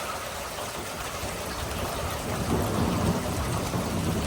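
Steady rain with a low rumble of thunder building from about two seconds in.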